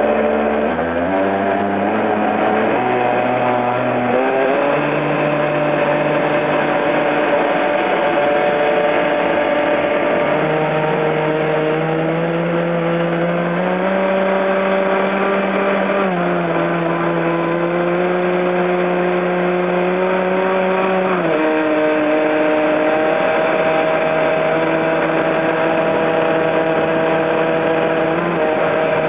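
Electric R/C catamaran's motor whining as it accelerates away, its pitch climbing over the first few seconds. It then holds a steady pitch at speed, stepping up and down a little a few times, over the rush of water from the hull.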